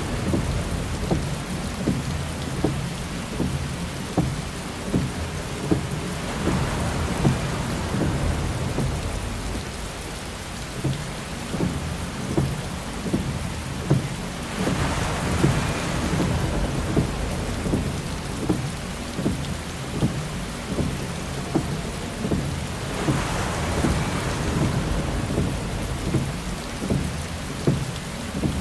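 Heavy rain drumming steadily on a car's roof and windshield, with many small drop impacts. Three times, about eight seconds apart, a windshield wiper swishes across the glass in a slow intermittent sweep.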